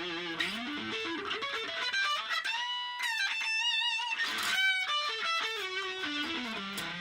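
Electric guitar played through a booster effect pedal, picking a melodic lead line with held notes shaken by vibrato about halfway through.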